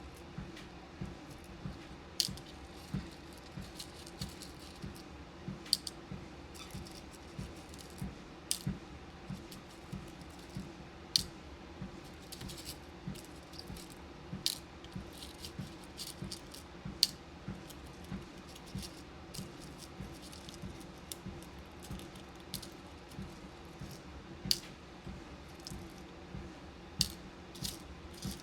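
Walking pad treadmill running with a steady hum under regular soft footfalls, while small beads and pins click and clink sharply now and then as they are sorted.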